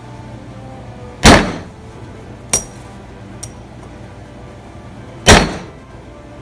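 Hammer blows driving a bearing onto its seat: two heavy strikes about four seconds apart, with two lighter taps between them. The oven-heated bearing would not drop on, so it is being knocked into place.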